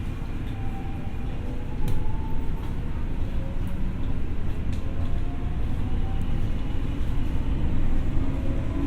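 Tokyo Metro 6000 series electric train running, heard from inside the car: a steady low rumble of wheels on rail, with faint whining motor tones that drift slowly in pitch. A couple of sharp clicks come through, about two and five seconds in.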